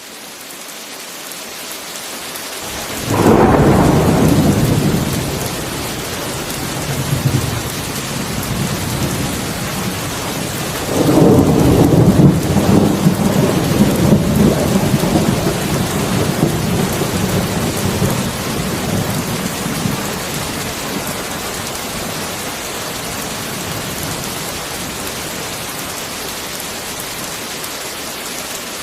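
Heavy rain falling steadily, with two rolls of thunder. The first breaks about three seconds in. The second comes about eleven seconds in and rumbles on for several seconds before fading back under the rain.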